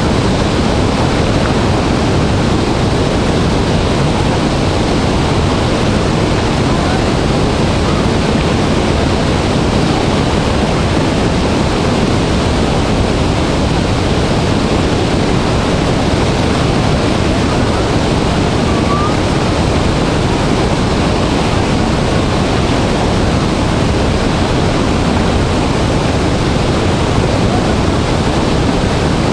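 Dray Nur Waterfall in heavy flow: a large volume of water falling and crashing, heard as a loud, steady, unbroken rush.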